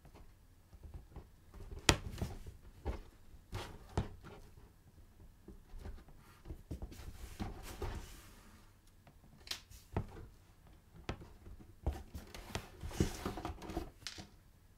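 Hands handling a stiff vegetable-tanned leather bag: scattered sharp taps and clicks, with stretches of rubbing and brushing against the leather. The sharpest click comes about two seconds in.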